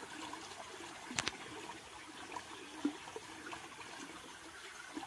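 Shallow stream trickling over stones, with a sharp knock about a second in and a smaller one near the middle.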